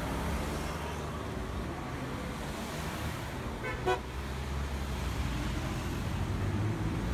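Cars passing on the road with a steady low rumble, and one short car horn toot about four seconds in.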